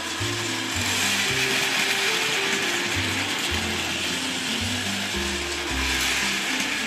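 Plarail toy shinkansen trains running at high speed on plastic track, a steady whirring and clattering of their small battery motors, gears and wheels. Background music with a bass line plays underneath.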